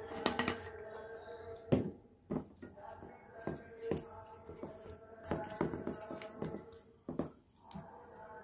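Hands rubbing salt and turmeric into raw pomfret in a stainless steel bowl: irregular wet slaps and small knocks of the fish against the bowl. Faint background music with steady held notes plays underneath.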